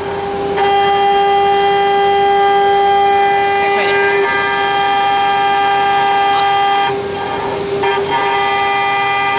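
Water-cooled 2.2 kW spindle of a mini CNC router whining at a steady pitch as its cutter engraves an aluminium plate under coolant. The upper tones of the whine thin out briefly about seven seconds in, then return.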